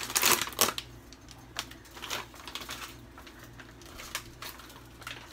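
Plastic food bag crinkling as it is shaken and emptied into a cooking pot, with a burst of rustling at the start and then a few scattered light clicks.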